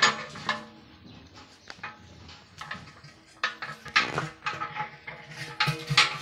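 Irregular knocks and clanks from a large aluminium cooking pot and bricks being handled and set down, a few sharp strikes with a brief metallic ring.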